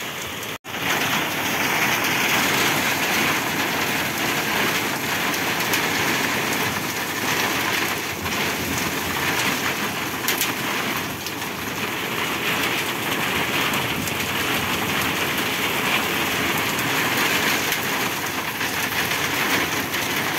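Heavy rain pouring steadily, the drops drumming on the roof overhead. The sound cuts out for an instant about half a second in.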